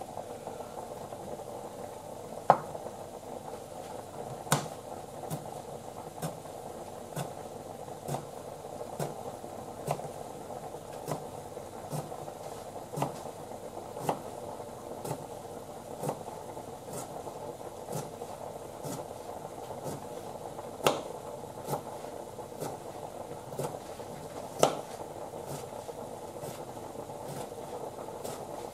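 Kitchen knife slicing a cucumber on a plastic cutting board: slow, even chops about once a second, a few of them louder knocks. A steady hiss from the simmering stew pot runs underneath.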